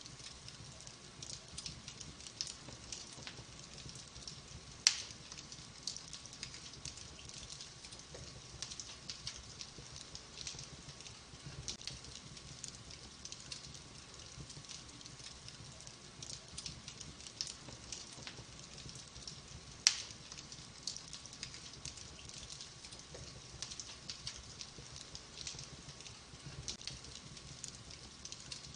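Wood fire in a fireplace crackling steadily: many small quick ticks over a low flame rumble, with two sharp, much louder pops, about five seconds in and again about twenty seconds in.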